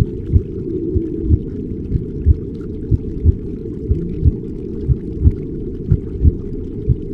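Muffled, low underwater-style ambience: soft low thumps about once a second under a dull rumble, with faint slow gliding moaning calls.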